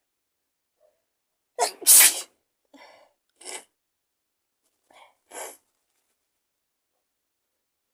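A person with a cold sneezing once, loudly, about two seconds in, with a short lead-in just before the main burst. Four short, much quieter breathy sounds follow over the next few seconds.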